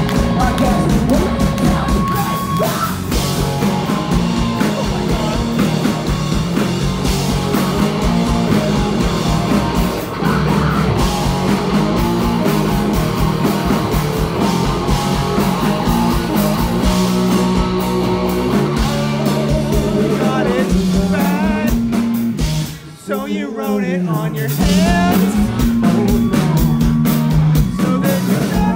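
Live rock band playing loud on stage: electric guitars, bass, drums and sung vocals, recorded from the front row on a phone. Near the end the band stops for a moment, then comes back in.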